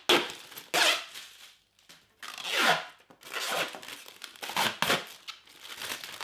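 Protective plastic film being peeled off a clear acrylic door panel in several ripping pulls, with the plastic crinkling.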